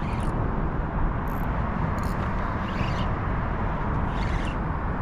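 Steady low rumbling outdoor background noise, with a few brief faint higher sounds over it.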